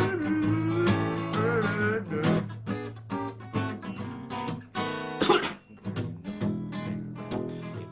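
A song on strummed acoustic guitar. A sung line carries on over the strumming for the first two seconds, then the guitar plays on alone, with one hard strum about five seconds in.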